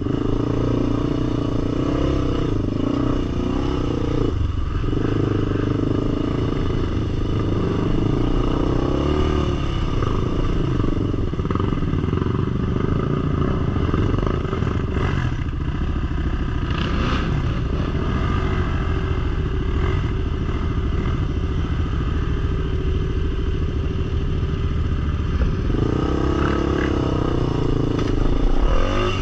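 Sport ATV engine running steadily, a continuous low pulsing note with no clear revving.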